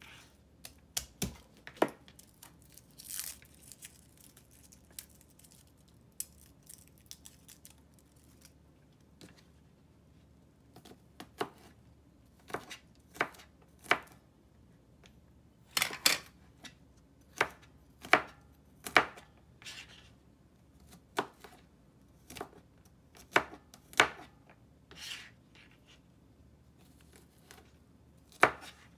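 Kitchen knife cutting garlic cloves on a cutting mat: single sharp knife strikes at an uneven pace, one or two seconds apart, with a couple of short rustles in between.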